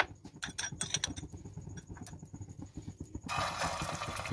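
A fork clinks against a glass bowl as a shami kabab patty is dipped in beaten egg. About three seconds in, a sudden steady sizzle starts as the egg-coated patty goes into hot oil on an iron pan.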